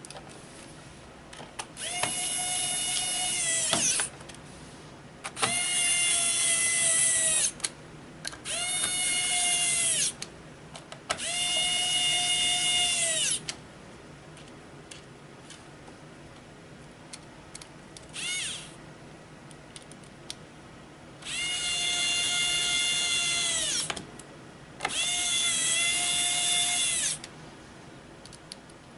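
Electric screwdriver driving small screws back into a Chromebook's base. There are six runs of about two seconds each, and in each the motor whine rises, holds steady, then drops away as the screw seats. There is one brief blip partway through, and small clicks in between.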